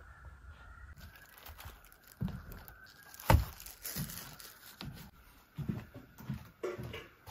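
Someone moving about and handling things at a camp table: scattered soft knocks, thuds and rustles, the loudest a single sharp knock about three seconds in.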